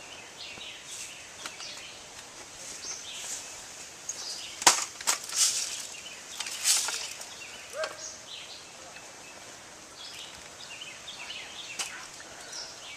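Birds chirping over outdoor ambience, with a handful of sharp snaps and short hissing bursts from about four and a half to seven seconds in, the loudest at the start: airsoft guns being fired.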